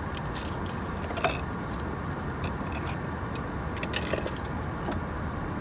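Steady hum inside a parked car, with scattered small clicks and rustles of a paper receipt and small items being handled.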